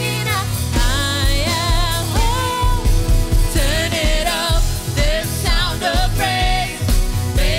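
A Christian worship song: a singer's voice over a band with a steady bass and drum beat.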